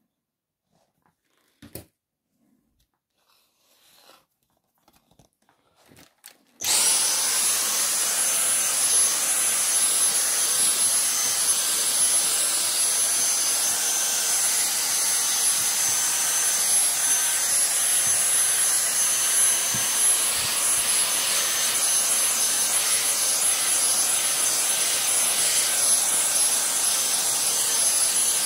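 Dyson V6 Animal cordless vacuum, in handheld mode, switched on at max (turbo) power about six and a half seconds in after a few faint handling clicks, then running steadily with a high whine. Its newly fitted replacement battery keeps it running on max power, where a weak cell would make it cut out.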